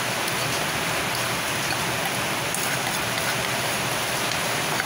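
Steady hiss of falling rain, with a few faint ticks of sugar being scraped from a glass bowl into an aluminium pan.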